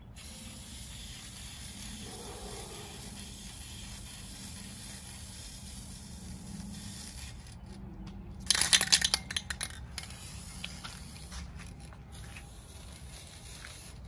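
Aerosol spray can of Dupli-Color vinyl and fabric paint hissing in long, steady sprays with a few brief breaks. About two thirds of the way through there is a much louder burst lasting about a second.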